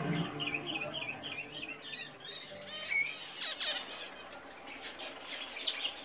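White zebra finches chirping and calling in a cage: a run of quick, wavering high notes over about the first two seconds, then scattered short calls.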